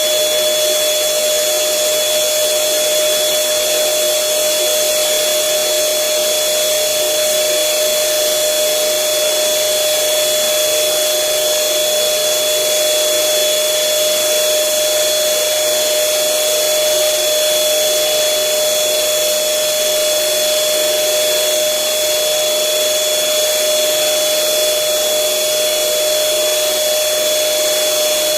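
Electric air blower running steadily as it inflates a giant balloon: an even rush of air with a constant hum and a high whine, not changing at all.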